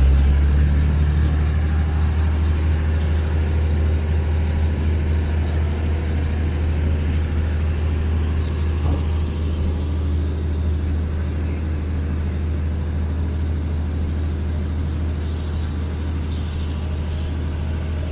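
Steady low rumble of a diesel train running on without change.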